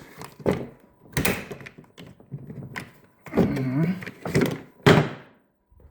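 Hard plastic clicks and thunks of Makita 18V slide-on batteries being unlatched and pulled out of the lawnmower's battery compartment: several separate knocks, one about every second or so.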